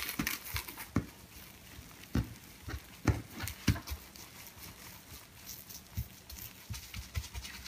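Plastic wrap crinkling as hands roll and press a log of cookie dough on a countertop, with irregular soft thumps from the hands.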